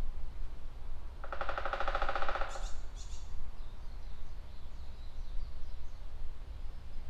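A woodpecker drumming its bill against a tree trunk: one rapid, even roll of knocks lasting about a second and a half. Two short high bird calls come right after it, over a steady low rumble.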